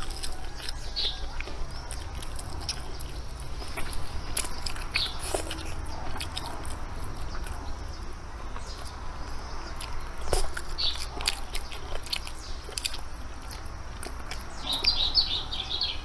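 A person eating: chewing, with small scattered clicks of chopsticks and bowl, and a few short high chirps, several of them bunched together near the end.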